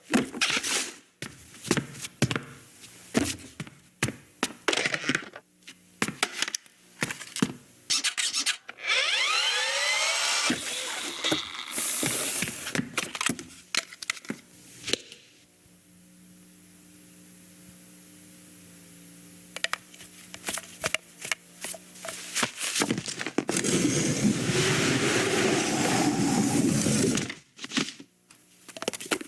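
Animated-film sound effects without dialogue or music: a busy run of knocks, clicks and clatters, gliding tones about nine seconds in, a quieter steady hum in the middle, then a long loud noisy rush near the end.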